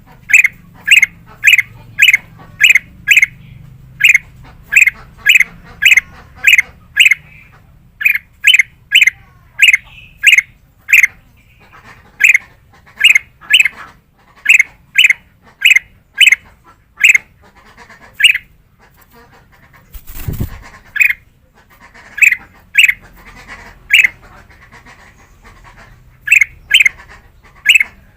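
Kutilang emas (black-crested bulbul) calling loudly, giving short sharp notes about twice a second in long runs broken by brief pauses. There is a short low thump about twenty seconds in.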